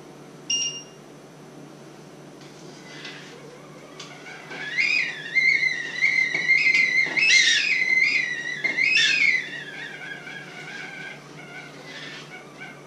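Stovetop kettle whistling for about six seconds, its pitch wavering as it swells and then sliding lower as it dies away. A short electronic beep sounds about half a second in.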